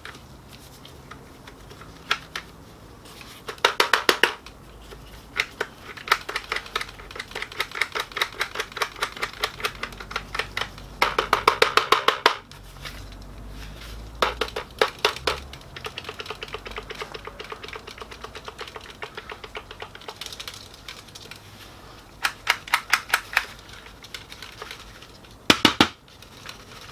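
Plastic gear train of a Ricoh MP 4054 developer unit clicking in runs of quick, even clicks as the drive gear is turned by hand to tip the old developer powder out of the unit.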